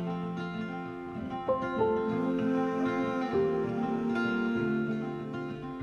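Background music: acoustic guitar strumming chords, with no singing.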